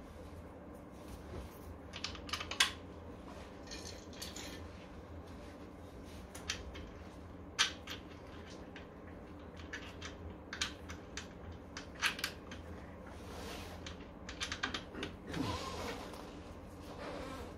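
Irregular sharp clicks and taps of small metal parts and hand tools being handled, a few louder than the rest.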